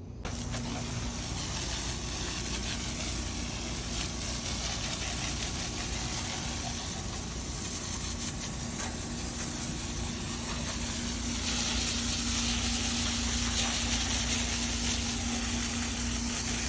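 Garden hose spraying water into a condenser coil, rinsing out foaming coil cleaner: a steady hiss of spray that starts suddenly and grows a little louder after about eleven seconds, with a steady low hum underneath.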